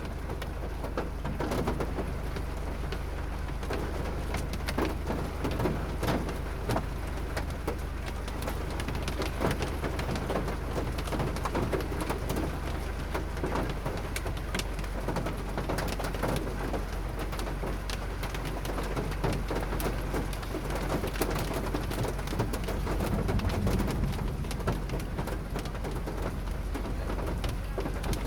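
Hail and rain pelting down steadily, a dense, irregular patter of many small sharp hits.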